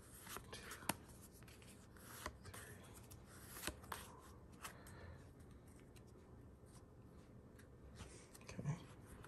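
Faint, scattered clicks and slides of Pokémon trading cards being flipped through one at a time in the hand, card rubbing on card.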